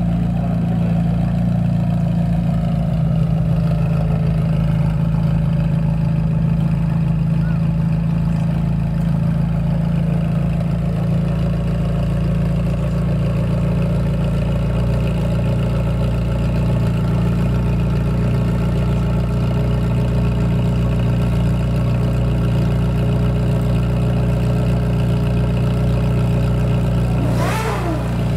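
McLaren 720S twin-turbo V8 idling steadily through a Boden Stage 2 titanium full exhaust. A short hiss comes in near the end.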